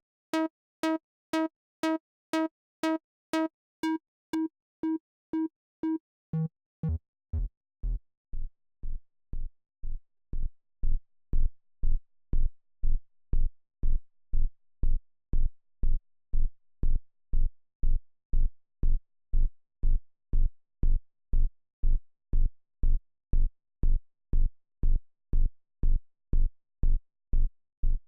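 Reason Subtractor synthesizer patch being shaped into a kick drum, retriggered about twice a second. At first each hit is a short pitched tone with bright overtones; about six seconds in the pitch sweeps sharply downward and the hits become short, deep thumps like a kick drum, which get louder about ten seconds in.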